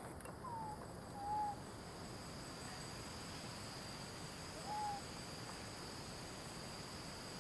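Infant macaque giving three short, soft coo calls, the first two about a second in and the third near five seconds, over a steady drone of crickets.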